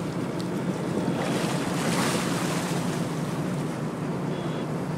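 Boat engine running steadily under water rushing and splashing along the hull, with wind buffeting the microphone.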